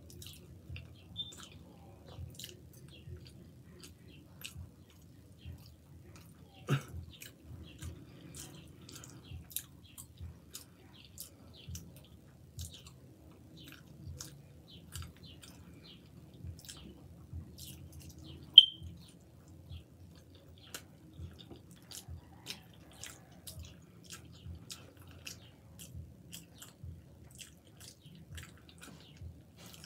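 Close-up chewing and wet mouth sounds of a person eating chili cheese fries, with many small smacks and clicks. There is a sharper click about a quarter of the way in and a louder short click past the middle.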